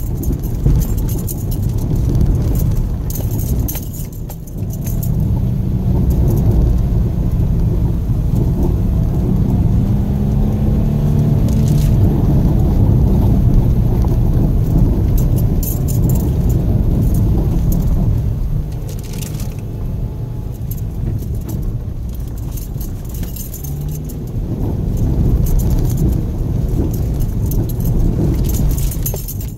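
In-cabin sound of a 2014 Subaru XV Crosstrek's flat-four driving on a dirt road: a heavy rumble of tyres over dirt and gravel under the engine's hum, which rises and falls gently for a while. Light clinking and rattling from the interior runs through it.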